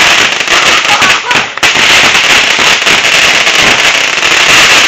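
Consumer fireworks going off in a loud, dense, continuous crackle of rapid pops, stopping abruptly near the end.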